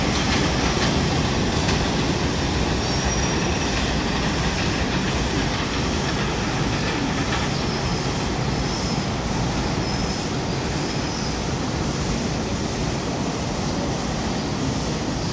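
An R142 subway train running away along an elevated steel line, its wheels rumbling on the rails with a few faint, brief high squeals. The sound slowly fades as the train recedes.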